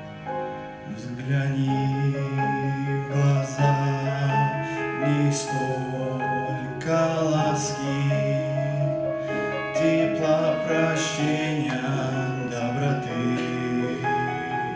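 Music: sustained pitched notes with sharp accents every couple of seconds.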